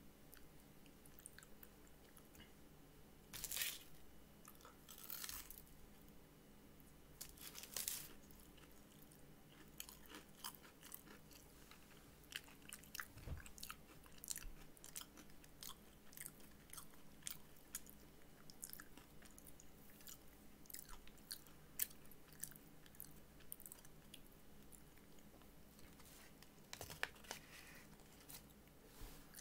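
A person chewing and biting into an apple pie close to the microphone: soft, irregular crunches and mouth clicks, with a few louder crunches about three and a half, five and eight seconds in and again near the end.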